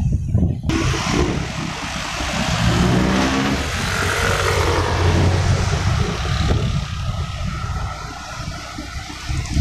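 Motorcycle engine running while riding along a road, with wind rushing over the microphone from about a second in. The engine note glides in pitch a few seconds in.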